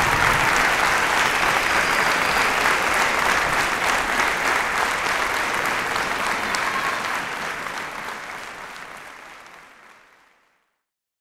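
Audience applauding with steady clapping that fades out over the last few seconds to silence.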